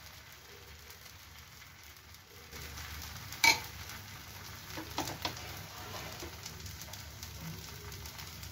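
Jowar-flour chilla batter sizzling quietly on a hot tawa as its first side cooks. There is one sharp click about three and a half seconds in and a few smaller ticks around five seconds.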